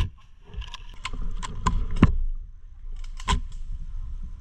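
Irregular knocks and clicks, about half a dozen, the loudest about two seconds in, over a low rumble.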